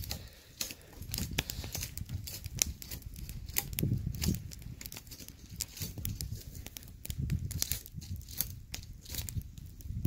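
Cord being wrapped and pulled tight around the crossed sticks of a tripod lashing. It makes a rustling, crinkling noise with many small sharp clicks as the cord drags over bark and the sticks are handled, and occasional dull bumps.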